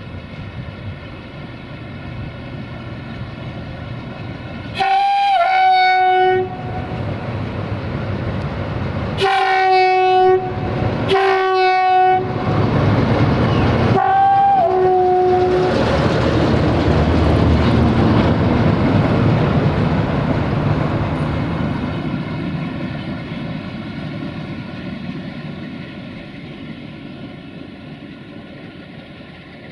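Locomotive air horn sounding four loud blasts over about ten seconds, each holding two notes. Then a locomotive rumbles past on the rails, swelling and fading away, leaving a diesel locomotive's engine idling steadily.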